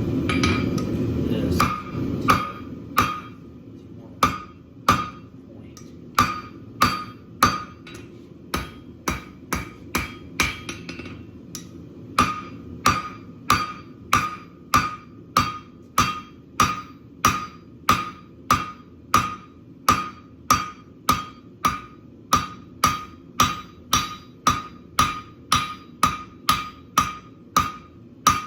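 Blacksmith's hammer striking hot steel on an anvil, each blow with a short metallic ring. The blows come unevenly for the first several seconds, then settle into a steady rhythm of about two a second.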